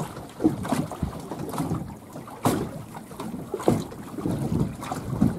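Wind buffeting the microphone on a small fishing boat, uneven and gusty, with choppy water slapping against the hull a few times.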